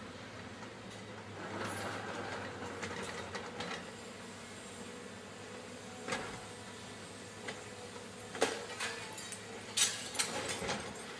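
A machine running steadily with scattered sharp metallic clicks and clanks. One stands out about six seconds in, and a cluster of louder ones comes near the end.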